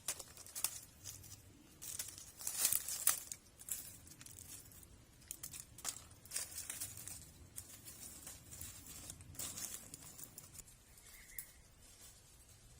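Irregular rustling and crackling of dry plant material being handled, with short sharp crackles, loudest about two to three seconds in.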